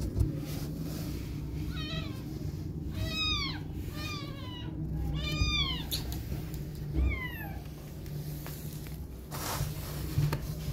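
A cat mewing: about five short, high calls, each rising then falling in pitch, over a steady low rumble, with a brief rustle near the end.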